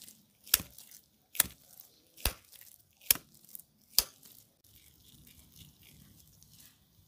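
A ball of raw ground beef slapped back and forth between gloved palms to pack it: five sharp wet slaps a little under a second apart, then softer handling as it is pressed into shape.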